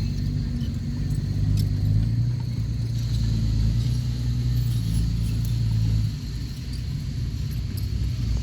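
Heavy earthmoving machine's diesel engine running under load with a low, steady rumble, the engine note easing off about six seconds in.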